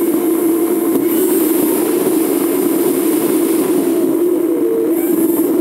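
Steady drone of a moving vehicle: road and wind noise with a constant low hum that does not change.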